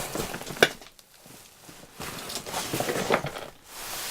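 Packaging being handled and unwrapped: rustling and crackling, with a sharp click about half a second in.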